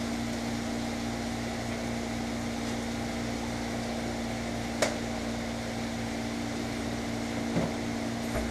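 Zucchini, onion and salt pork frying in a pan, a soft steady sizzle under a constant motor hum, with one sharp click a little under five seconds in.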